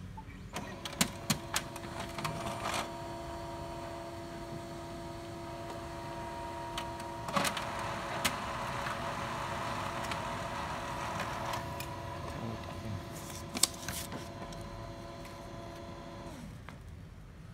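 HP Color LaserJet M277n laser printer printing a page. Its motors start with a few clicks, then run with a steady hum of several whining tones and occasional clicks, and stop about a second before the end as the page is delivered.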